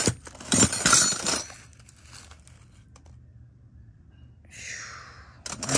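Brass belt buckles clinking and clattering against each other as they are rummaged through, for about a second and a half. Then it goes quiet, and a short rustle comes near the end.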